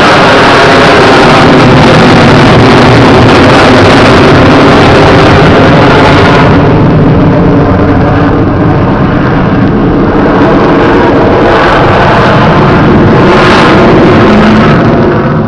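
Avro Vulcan B2 bomber's four Rolls-Royce Bristol Olympus jet engines at high power in a low pass, very loud and steady, with wavering tones running through the jet noise.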